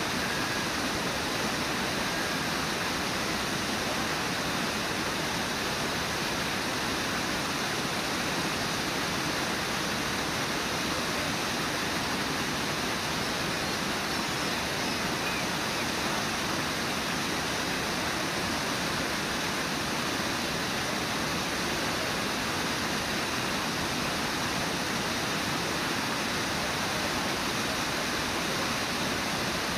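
Steady rush of water pouring over Brooks Falls, a low, wide river waterfall, and through the rapids below it.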